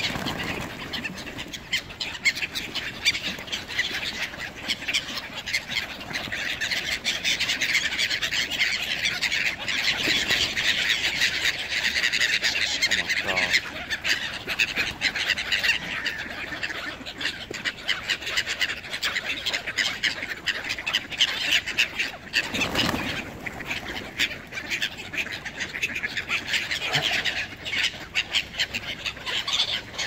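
A flock of feral pigeons and gulls mobbing for food, the gulls squawking without a break over the flutter and clatter of many wingbeats.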